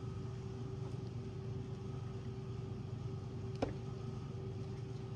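Steady low machine hum with a constant tone, with one light click about three and a half seconds in.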